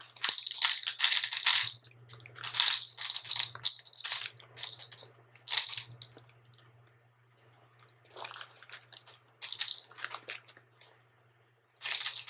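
A plastic pasta bag crinkling as a hand reaches in, and pieces of dry red lentil pasta clattering into a ceramic bowl on a kitchen scale. The sounds come in about six separate bursts with short pauses between them.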